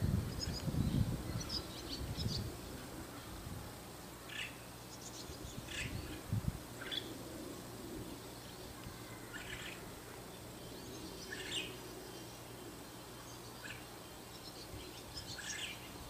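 White-cheeked starling giving short calls, scattered about one every second or two. A low rumble of wind or handling noise sits under the first couple of seconds.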